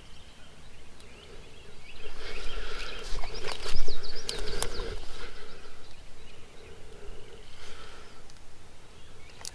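Songbirds singing outdoors, strongest in the middle of the stretch, with a few sharp clicks and some rustling handling noise among the song.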